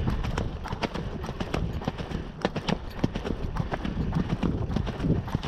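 Hoofbeats of a ridden horse at an easy gallop, a quick run of sharp knocks over a steady low rumble, picked up by a GoPro carried on the ride.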